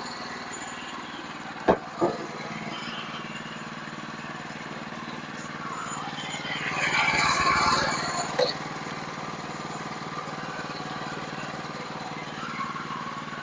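Sawmill engine running steadily, with two sharp knocks about two seconds in and a louder swell of noise a little past halfway, followed by another knock.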